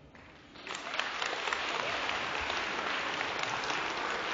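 Audience applauding, starting abruptly under a second in and holding steady as the pupils bow.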